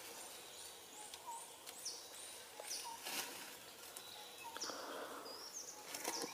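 Outdoor forest ambience: birds giving short chirps repeated about every second and a half, with a few higher whistled notes, over a steady background hiss. Brief rustles in dry leaf litter come about three and five seconds in.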